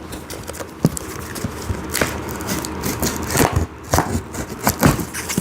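A cardboard shipping box being handled and opened, with scraping and crackling cardboard and a run of sharp knocks and clicks.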